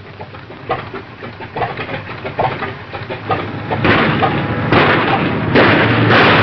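Motor-car engine and rushing noise on a hissy old film soundtrack, with a few short knocks. The noise grows much louder from about four seconds in as an open touring car speeds over rough desert ground.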